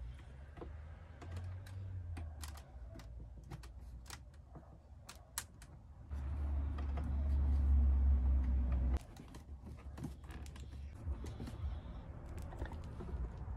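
Scattered light clicks and taps of small plastic car trim parts being handled and fitted, with a low rumble that swells for a few seconds midway.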